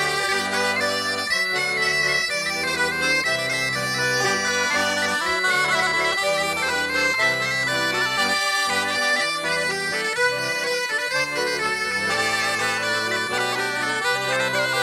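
Traditional Breton dance tune played on bagpipes: a busy melody of many short notes over lower held notes, at a steady level.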